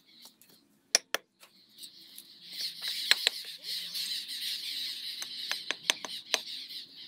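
Brick hammer tapping fired clay bricks down into wet mortar: sharp knocks, two about a second in, then more scattered through the rest. From about two and a half seconds in, a steady high chatter of birds runs underneath.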